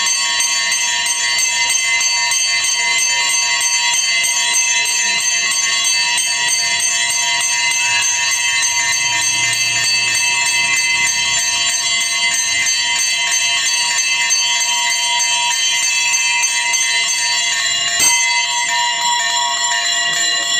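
Large hanging temple bells rung continuously by hand, a dense, steady clanging with many overlapping ringing tones. There is one sharp clack near the end.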